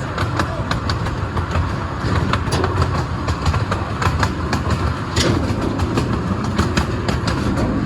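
Zoo train running along its track, heard from aboard: a steady rumble of the coaches with wheels clicking and knocking over the rails, and one sharper clank a little past five seconds in.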